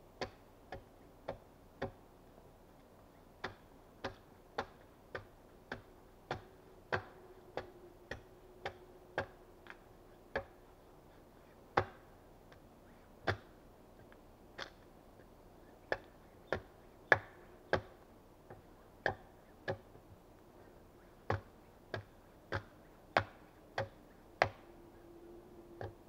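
Axe chopping into a log, one sharp crisp stroke after another at roughly one and a half strokes a second, in runs broken by brief pauses.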